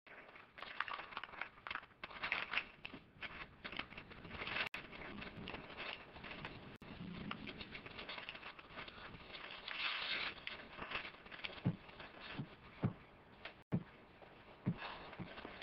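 A knife scraping and slicing through a slab of bacon on crinkly wrapping paper, with the paper rustling and crackling unevenly. A few short soft knocks come near the end.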